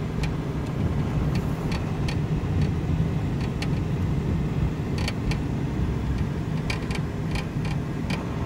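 Van being driven along a rough, cracked paved road, heard from inside the cab: a steady low rumble of engine and tyres with scattered sharp ticks and clicks.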